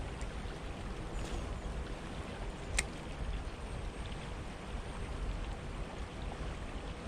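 Steady rush of flowing water from a warm-water canal, with a single sharp click about three seconds in.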